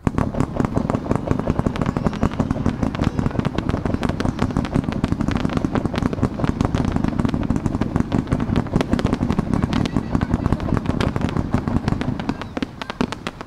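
A rapid-fire fireworks barrage: small shells launching and bursting close by in a dense, continuous run of bangs and pops. It starts abruptly and thins out near the end.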